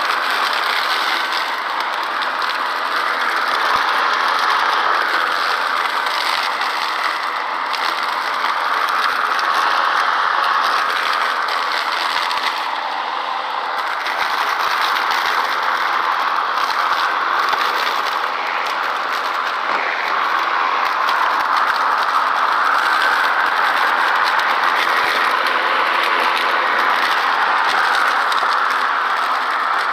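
Ryobi 40V cordless brushless electric lawn mower running steadily as it is pushed along, its 20-inch blade cutting damp grass and fallen leaves and blowing them into the rear collection bag. The level dips and rises a little as it goes.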